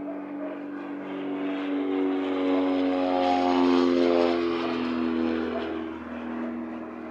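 Piper Seneca's twin Continental TSIO-360 engines and propellers passing low overhead: a steady drone that swells to its loudest about halfway through and drops in pitch as the aircraft goes by, then eases off.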